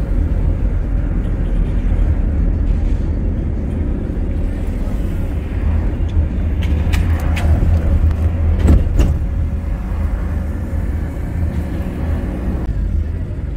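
Steady low rumble of a car driving, heard from inside the cabin, with a few short sharp clicks about halfway through.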